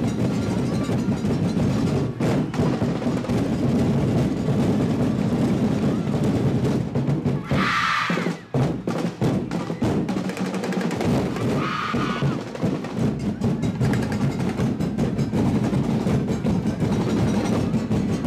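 Percussion ensemble of drums and wood-block-like instruments playing a dense, driving rhythm for a dance, twice cut across near the middle by a short, higher-pitched burst.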